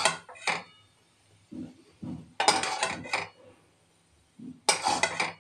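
A spatula scraping the cooked aloo methi out of a metal kadhai into a metal serving dish, with metal-on-metal scrapes and clinks as the pan is scraped clean. It comes in three bursts: at the start, around the middle, and near the end.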